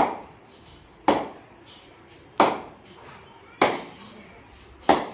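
A ball knocked up repeatedly off the face of a new SG Sunny Gold Classic cricket bat: five sharp wooden knocks, about one every 1.2 seconds, each ringing briefly.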